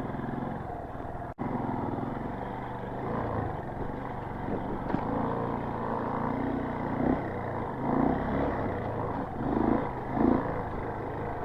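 Motorcycle engine running at low speed on a rough trail, with several brief rises in revs in the second half. The sound cuts out for an instant a little over a second in.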